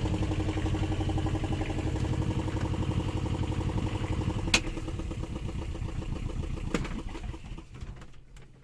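Small inboard diesel engine of a Colin Facey 21 boat running smoothly and evenly at idle, with a sharp click about four and a half seconds in and another near seven seconds; the engine sound fades out near the end.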